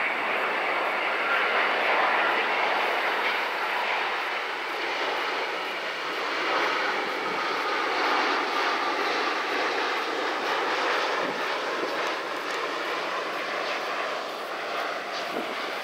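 Air New Zealand Boeing 787-9 on final approach with gear down, its two Rolls-Royce Trent 1000 turbofans running at approach thrust as it passes close overhead: a loud, steady rushing jet noise with a faint whine in it, easing a little near the end.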